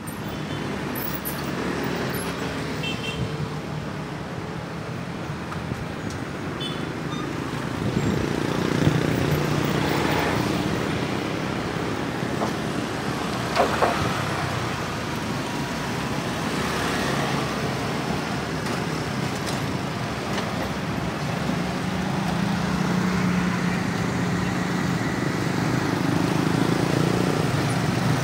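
Road traffic of small motorcycles and scooters passing close by, engines running and swelling as each one goes past. A short sharp knock comes about halfway through.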